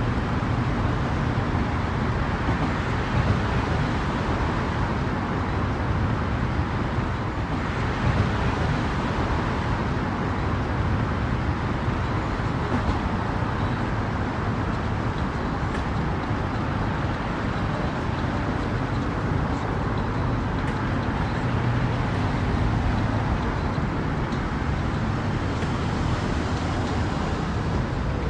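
Engines running steadily at low speed, a constant low rumble under a broad hiss.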